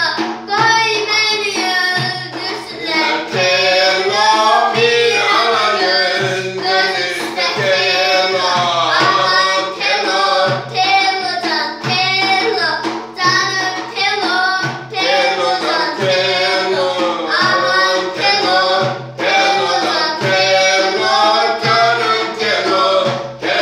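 A girl singing an ornamented folk song, her voice bending and wavering through long runs, with a hand-held frame drum beating a rhythm under it.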